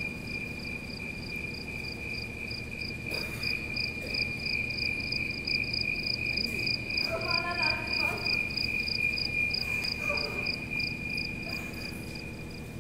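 A cricket trilling continuously in one high, even pitch, which stops abruptly near the end. Faint voices are heard under it.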